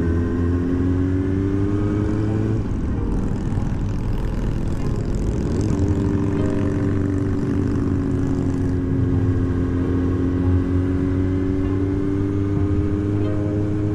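Inline-four engine of a 2009 Yamaha YZF-R6S with a Two Brothers full exhaust, running at speed on the road. Its pitch climbs in the first couple of seconds, shifts gear about three seconds in, holds roughly steady, and drops with another shift near the end, over a steady low rumble of wind and road noise.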